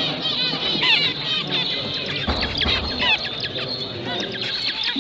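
Many zebra finches calling at once: a dense, continuous chatter of short, overlapping chirps.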